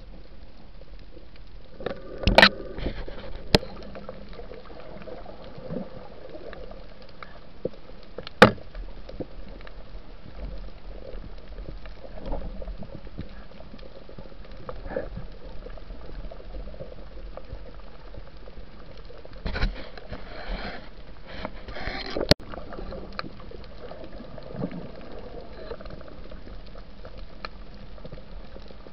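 Muffled underwater noise heard through a camera's waterproof housing: a steady wash, broken by a few sharp clicks and knocks, with a cluster of them about twenty seconds in.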